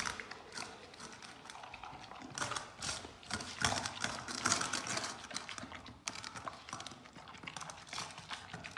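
Dog eating wet food from a stainless steel bowl: a rapid, irregular run of small clicks and knocks of chewing, lapping and the metal bowl being nudged.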